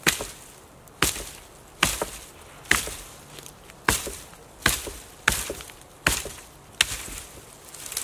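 A hatchet chopping into a fallen wooden branch: nine sharp strikes, a little under a second apart.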